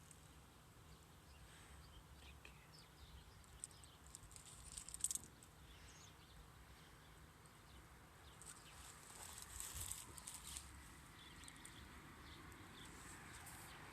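Near silence: faint outdoor ambience, with a few soft crackles or rustles about four seconds in and again around ten seconds.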